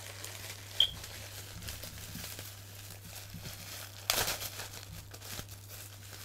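Plastic packaging crinkling and rustling as it is handled and unwrapped, with a louder crackle just after four seconds and a brief sharp high blip about a second in. A steady low hum runs underneath.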